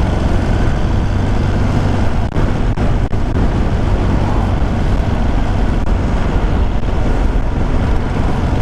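Ducati motorcycle cruising at a steady speed, its engine running evenly under a constant rush of wind on the helmet microphone.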